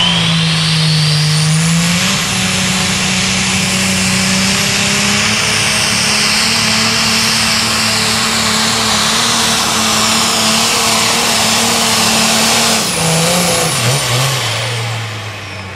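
International pulling tractor's turbocharged diesel engine at full power under load during a pull, rising in pitch at the start and then holding steady and high. About thirteen seconds in its pitch falls and it gets quieter, with a high whistle sliding down, as the pull ends.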